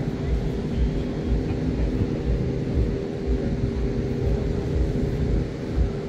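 A steady engine drone holding an even pitch, over a low, uneven rumble.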